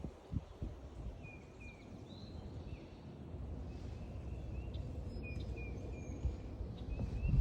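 Small songbirds chirping with short high calls and brief whistled notes scattered throughout, over a steady low rumble. A few soft footsteps near the start.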